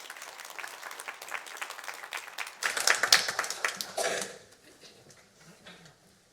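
Church congregation applauding, the clapping swelling to its loudest about three seconds in and dying away about a second later, leaving only a few faint knocks.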